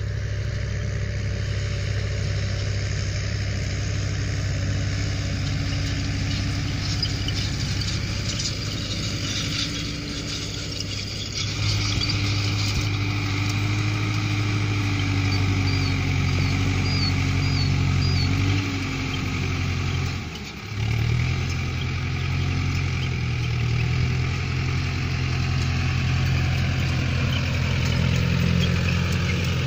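Solis 60 HP tractor's diesel engine running steadily under load while pulling a rotary hay rake, with a brief dip in its sound about two-thirds of the way through.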